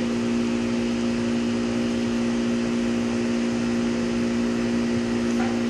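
Steady hum of a running electric machine: a constant low drone with even overtones over a fan-like rush.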